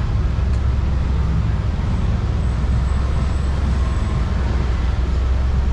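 Yamaha Aerox scooter's single-cylinder engine running steadily while riding, under a heavy low rumble of road and wind noise.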